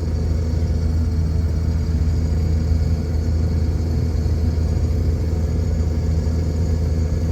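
Case IH 2188 combine running steadily while unloading corn through its unloading auger, a low, even drone.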